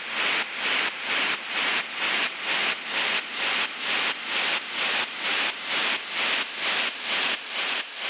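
Synthesized white noise pulsing in a steady rhythm, a little over two pulses a second, as an electronic dance track's outro effect. Near the end the low end drops out and the pulses fade.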